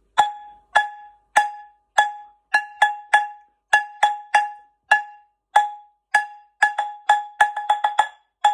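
Wooden spatula drumming on a metal pan: a string of short strikes, each with a brief metallic ring. They start as four even beats and then move into quicker, changing rhythms played one after another without a pause.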